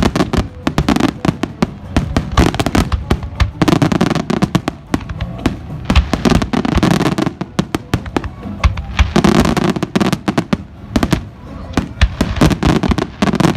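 Fireworks display, with rapid sharp bangs and crackles of bursting shells coming thick and fast throughout. Music and voices can be heard underneath.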